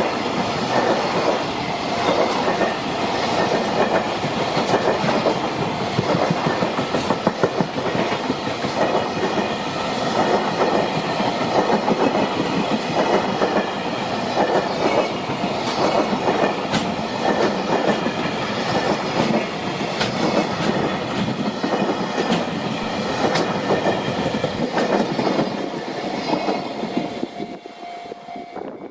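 JR Freight container train rolling past at speed, its wagons' wheels clattering over the rail joints in a continuous clickety-clack. The clatter dies away near the end as the last wagons go by.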